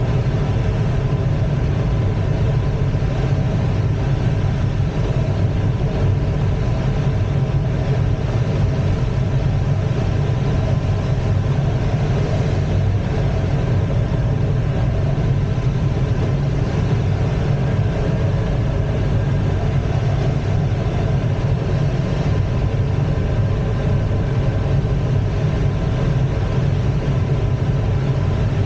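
Steady in-flight cockpit noise in an ASK-21 two-seat glider: an even, unbroken low rush with faint steady tones above it, unchanged throughout.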